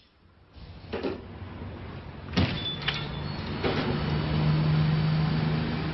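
Several sharp knocks and bumps, one followed by a brief high ring, over a steady low hum that sets in about halfway through.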